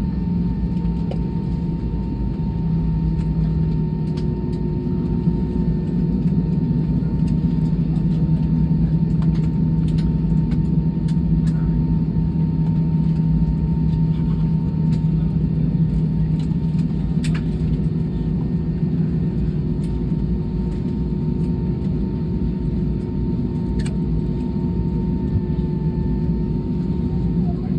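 Cabin noise inside an Airbus A320-214 airliner: a steady low rumble and hum from the aircraft and its engines, with a thin steady whine running over it that drops out briefly past the middle. Faint small clicks are scattered through.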